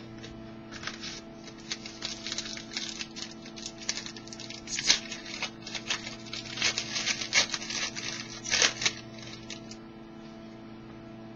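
Hockey trading cards being handled and slid across one another, a run of short papery swishes and flicks that die away near the end, over a steady electrical hum.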